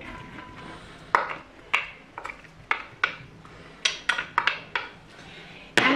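Soaked lentils sliding out of a glass bowl into a pressure cooker with a soft hiss. Then a wooden spatula knocks and scrapes the bowl over the pot in about ten separate sharp clicks and clinks, the loudest near the end.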